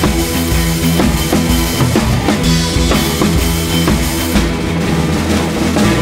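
Music with a steady drum-kit beat: kick and snare hits over sustained bass and instrument tones.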